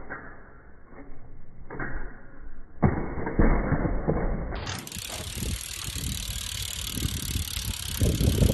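BMX bike ridden and hopped on concrete: a run of rapid clicking from the freewheeling rear hub, tyre scuffs, and knocks as the bike lands. The loudest knocks come about three seconds in and again near the end.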